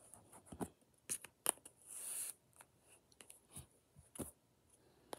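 Scissors and kinetic sand being handled: scattered light clicks and scrapes, with a brief scraping hiss about two seconds in.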